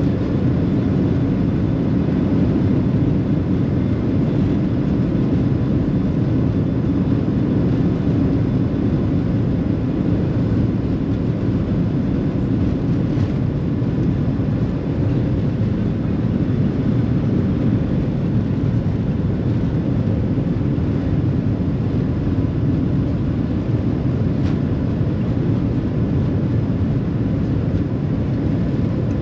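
Airliner cabin noise while the plane taxis: a steady low rumble from the jet engines and airflow, with a faint steady whine.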